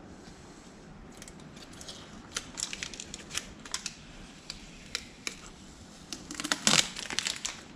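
Protective plastic film crinkling and crackling in irregular little clicks as it is peeled off a new moped toolbox cover and handled, with a louder burst of crackling near the end.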